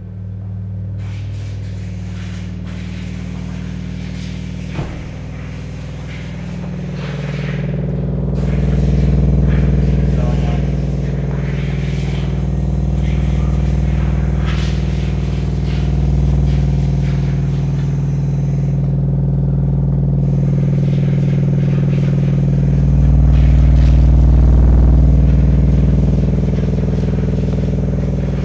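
EDGE Street car subwoofer in a carpeted hardboard cat-house box, driven hard with a 20 Hz test tone: a steady deep drone with a stack of even overtones. It grows louder about seven seconds in and again a little past twenty seconds.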